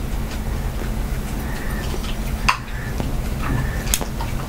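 A pipe smoker drawing and puffing softly on a briar pipe as he relights it with a butane lighter, with two sharp clicks about two and a half and four seconds in, over a steady low hum.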